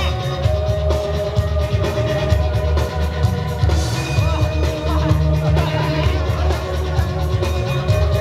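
Loud music with a heavy bass line and a steady beat, with gliding melodic sounds over it.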